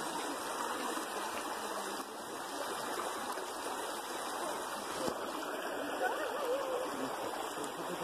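Shallow stream running over rocks: a steady rush of water.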